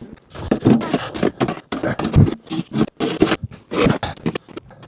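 Deep, fresh snow crunching and scraping in a quick, irregular series of strokes, a few each second.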